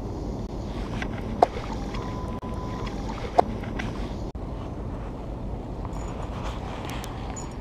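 Steady wind and water noise on the microphone of a small open boat, with two sharp clicks about two seconds apart in the first half.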